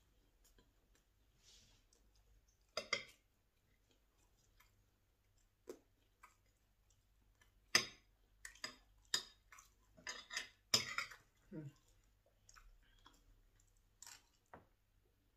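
Metal spoon clinking and scraping against a ceramic plate as fried rice is scooped up, in short, irregular clinks with chewing between them.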